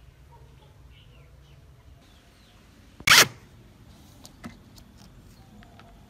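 A single short, loud scrape or rasp about halfway through, followed by a few light clicks and taps. Faint bird chirps in the background.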